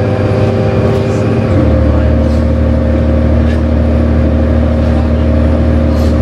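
1998 New Flyer C40LF city bus heard from inside while under way: steady drone of its Cummins Westport C Gas Plus natural-gas engine and driveline, with a few light rattles. About a second and a half in, the drone steps down to a lower note.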